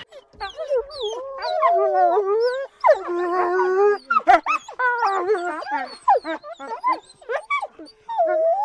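Several wolves howling and yipping at once: overlapping wavering howls mixed with short, quick yips and whines.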